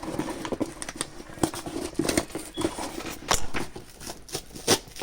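Irregular clicks, taps and rustling from packaging and a paracord bracelet being handled during unboxing.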